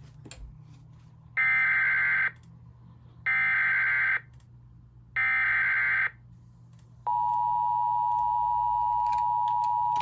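Emergency Alert System relay: three short warbling bursts of SAME header data about two seconds apart, then the steady, loud EAS attention tone starting about seven seconds in, announcing a severe thunderstorm warning.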